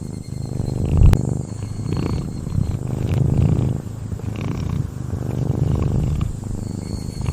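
Ginger cat snoring: a low buzzing rattle on each breath, swelling and fading in slow cycles about every second or so.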